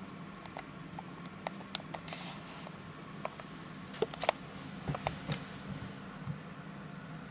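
A toddler chewing a mouthful of noodles, making soft, wet mouth clicks and smacks at irregular intervals, the sharpest a few about four to five seconds in, with a brief hiss about two seconds in.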